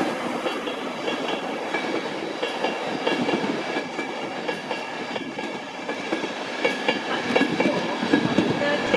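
Class 91 electric locomotive 91107 arriving at slow speed: a steady high-pitched whine over wheels clattering across rail joints, the clatter getting stronger near the end.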